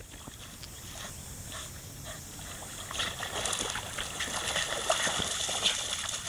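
Water splashing as a dog runs through shallow creek water, starting about halfway in and going on as a busy, noisy rush.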